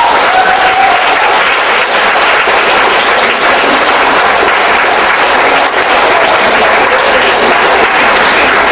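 Audience applauding steadily, a dense sound of many hands clapping.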